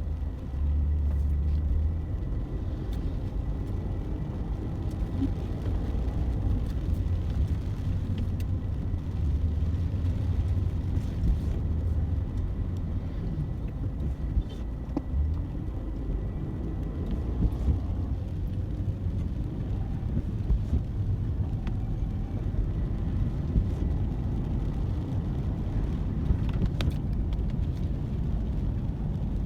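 Steady low rumble of a motor vehicle on the road, with a few faint clicks over it.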